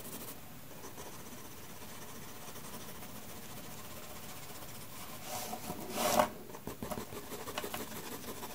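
Metal mechanical pencil shading on sketchbook paper: a steady, scratchy rubbing of graphite hatching. About five seconds in the strokes turn louder and more uneven.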